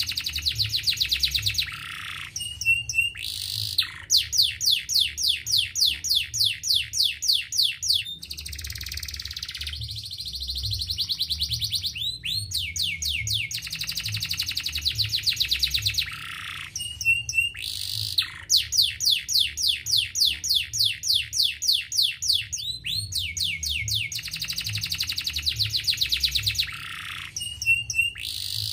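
Domestic canary singing a long song of rolling trills: phrases of fast, sweeping repeated notes at about five a second, broken by short pauses, with a buzzier rolled stretch about a third of the way in.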